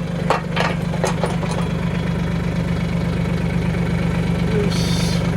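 Mahindra 1626 subcompact tractor's three-cylinder diesel engine idling steadily, with a few sharp knocks in the first second and a half and a brief hiss near the end.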